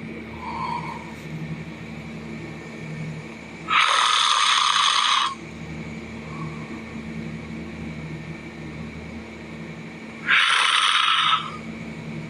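A person snoring loudly: two long, loud snores about six seconds apart, each lasting a second or more, with a steady low hum between them.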